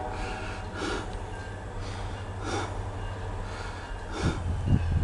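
Heavy breathing of an out-of-breath person close to the microphone, a breath about every second, over the steady low rumble of a diesel locomotive.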